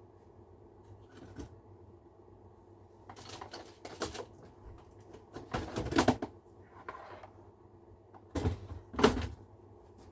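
Clicks and clatter of small hand tools being worked, wire strippers among them, in three short bursts.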